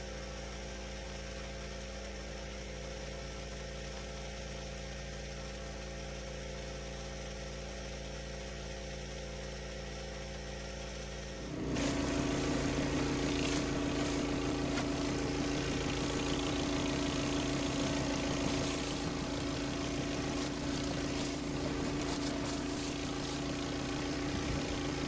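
Pressure washer's engine running steadily. A little under halfway through it suddenly gets louder and a hiss of spraying water joins in.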